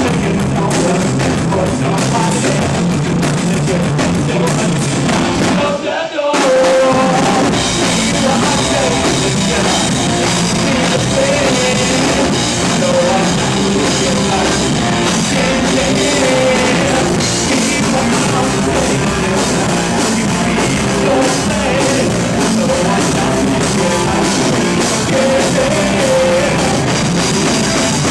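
Rock band playing live, with the drum kit driving the song. About six seconds in, the band stops for a split second, then comes straight back in.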